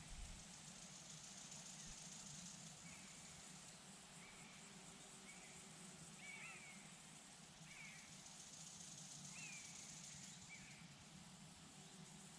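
Faint outdoor ambience: a bird repeats short, downward-sliding calls about once a second, over a soft steady hiss and a low hum.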